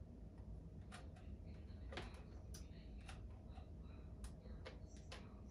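Irregular light clicks and ticks, about two a second, from working a hot glue gun along the edge of a plastic drawer, over a faint low rumble.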